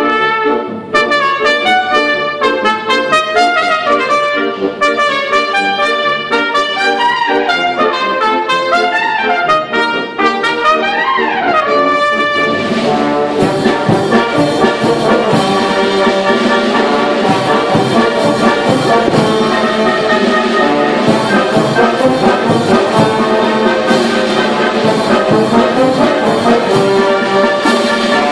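Wind band playing a paso doble with a solo trumpet: the trumpet carries the melody over light accompaniment, with a fast run up and back down just before the full band comes in about halfway through, brass and percussion in a steady march rhythm.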